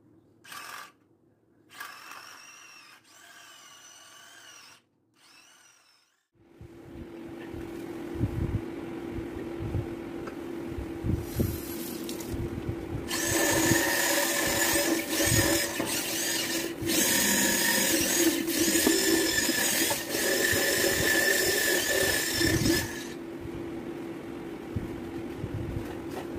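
Small electric motor of a cordless handheld 4-in-1 kitchen chopper running, its spinning head pressed against a wet stainless steel sink: a steady whirring hum that starts a few seconds in, grows louder and harsher for about ten seconds in the middle, then eases back.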